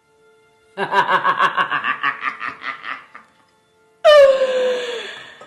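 A woman's theatrical witch's cackle: rapid pulses of laughter for about two seconds. About four seconds in it gives way to a loud, drawn-out cry that slides down in pitch and fades.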